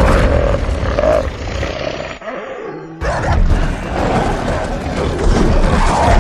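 Monster creature sound effects, loud growling roars: one fades away by about three seconds in, then a second starts suddenly and cuts off abruptly.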